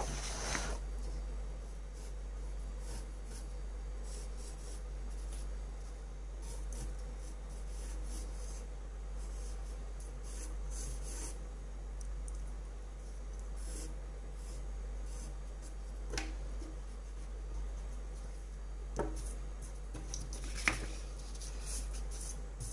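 Pencil sketching on paper: faint, scattered scratching and rubbing strokes over a steady low hum, with three sharper ticks in the later part.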